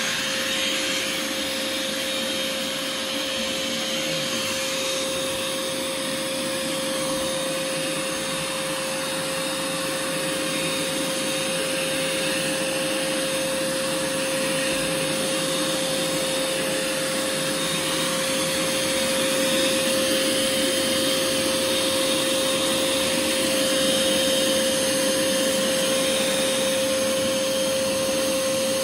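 Wet/dry shop vacuum running steadily, its motor giving a constant whine over an even rush of suction noise.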